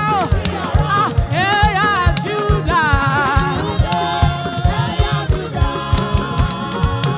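Live gospel praise music: voices singing over a band, with a quick, steady drum beat underneath. The bending sung lines give way to longer held notes about halfway through.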